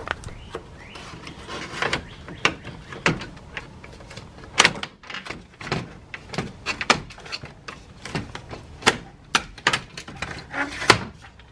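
Aluminium sliding screen door and a plastic pry tool making irregular clicks, knocks and rattles as the door's wheels are pried up and the door is worked loose in its track. The sharpest knocks come about four and a half seconds in and near the end.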